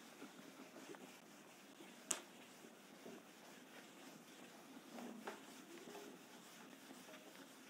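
Near silence: room tone with a few faint clicks, one sharper click about two seconds in.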